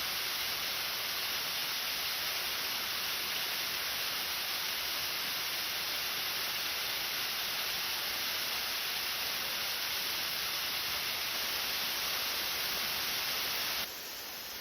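Waterfall: the steady rush of heavily falling water, which drops abruptly quieter near the end.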